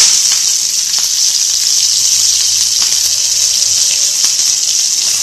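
Hot oil sizzling steadily in a kadai with asafoetida, cumin seed, mustard seed and green chili frying in it, with a few faint pops: the tempering stage of the cauliflower stuffing.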